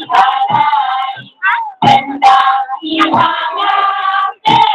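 A group of voices singing together in phrases, with short breaks about a second and a half in and again near the end.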